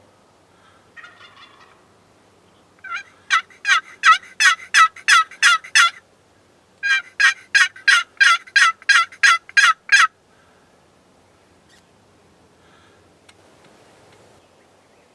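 Two loud series of turkey yelps, each about ten sharp notes at about three a second, with a pause of about a second between them. A faint short turkey call comes about a second in.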